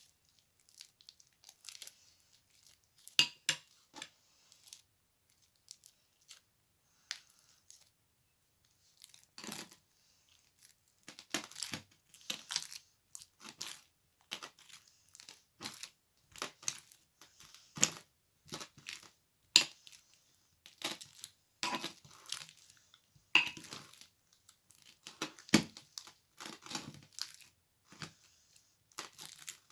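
Slime being squeezed and pressed by hand, giving irregular crackles and pops, sparse at first and coming thick and fast from about a third of the way in.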